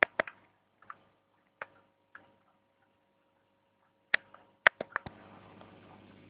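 Sharp snapping clicks from a homemade disposable-camera taser arcing: a few single snaps in the first two seconds, then a quick cluster of four a little after four seconds, followed by a faint steady hiss.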